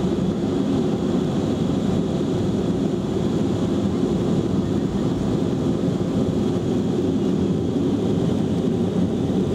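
Boeing 707-300's four JT3D turbofan engines running at takeoff power, heard inside the rear cabin: a steady, loud roar with a faint high whine over it, and the low rumble of the wheels on the runway during the takeoff roll.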